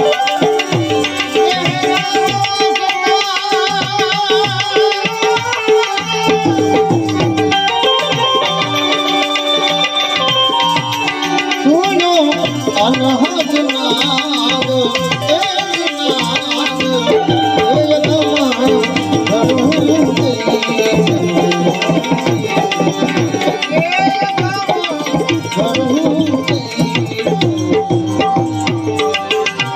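Instrumental interlude of Indian devotional folk music: tabla playing a steady rhythm under a melody instrument with wavering held notes.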